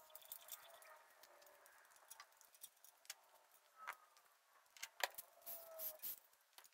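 Faint, scattered clicks and light metal clinks as a small-block Ford is turned over by hand with a long bar on the crankshaft bolt, rolling the lifters onto the cam's base circle.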